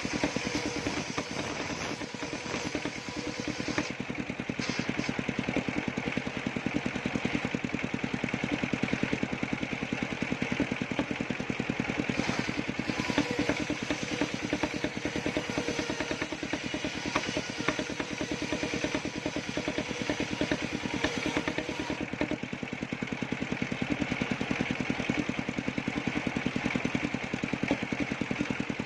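Engine of a circular sawmill running steadily, with a fast, even pulsing.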